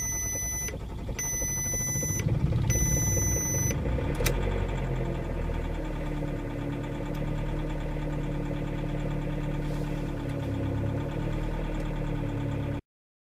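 Three electronic warning chimes from the car's instrument cluster as it shows a brake-system fault, while the engine cranks and catches at about −25 °C. The engine then runs at a steady fast cold idle with a held whine, and the sound cuts off suddenly near the end.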